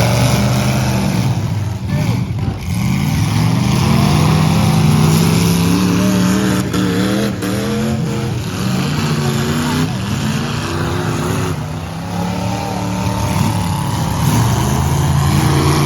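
Demolition derby cars' engines revving hard, several engine notes rising and falling over one another.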